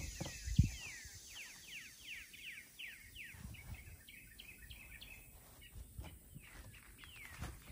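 Outdoor bird song: a quick series of falling chirps repeating several times a second, thinning out toward the middle and picking up again near the end. A few low thumps break in, the loudest about half a second in and another near the end.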